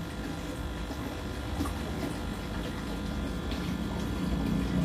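Steady hum of submerged aquarium pumps, with faint water sloshing and plastic crinkling as a fish bag is moved in the tank, and a few light ticks.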